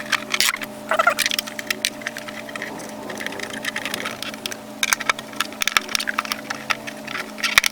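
Repeated clicks and knocks as the blower housing of a DeWalt DW735 planer is set back over the cutterhead and fitted into place.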